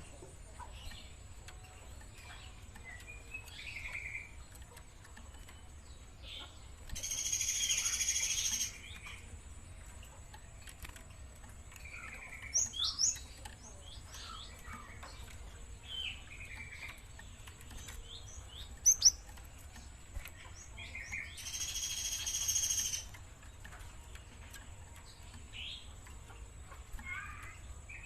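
Young Java sparrow calling: short scattered chirps, and twice a louder, longer rasping phrase of about two seconds.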